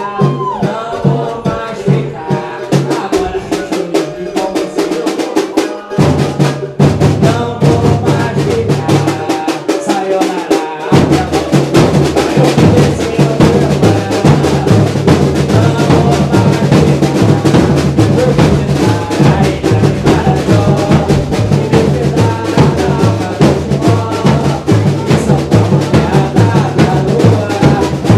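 Samba-enredo played by a carnival bloco's drum section, with a steady rhythm of sharp hits. Deep bass drums come in about six seconds in, and the full drum section plays from about eleven seconds in.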